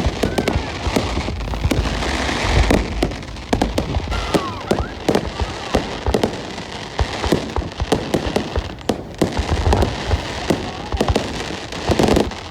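Aerial fireworks going off in rapid succession: a dense, irregular run of sharp bangs and crackles over a continuous low rumble.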